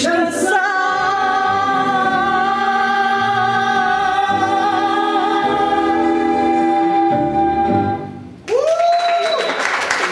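A woman singing, holding one long high note with vibrato over instrumental accompaniment; the note ends about eight seconds in and applause breaks out.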